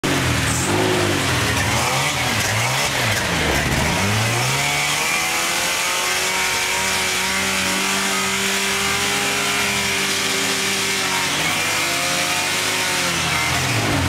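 Toyota pickup rock crawler's engine revving under load as it climbs rock ledges: several quick rises and falls in revs at first, then held steady at higher revs for about five seconds before easing off and picking up again near the end.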